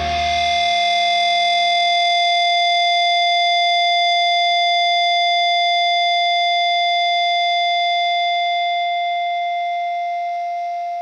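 A single distorted electric guitar note held as feedback, ringing out as a steady high whine after the bass and drums stop under a second in. It fades slowly near the end as the black/thrash metal song closes.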